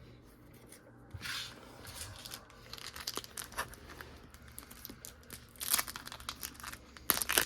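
A trading card pack's wrapper being torn open and crinkled by hand: scattered sharp crackles that come thicker from about three seconds in, with louder bursts of crinkling near the end.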